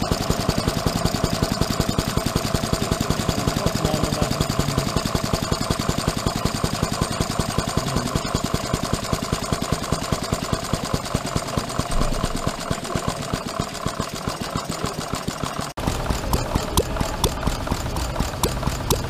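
Miniature home-built single-cylinder four-stroke stationary engine running at a steady, rapid, even beat of firing strokes. Near the end the beat changes abruptly to slower, sharper strokes over a low hum.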